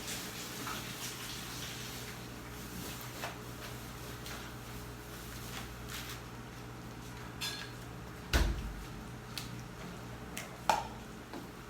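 Steady low hum with scattered light knocks and clatter of things being handled; a heavy thump about eight seconds in and a sharp clack near the end.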